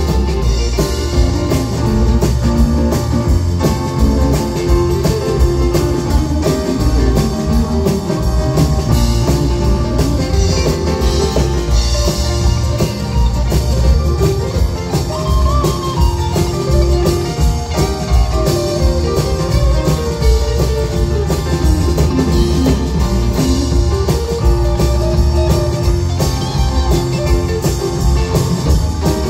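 Live country-rock band playing through a PA system: electric guitars, acoustic guitar, keyboard and drum kit together at a steady loud level.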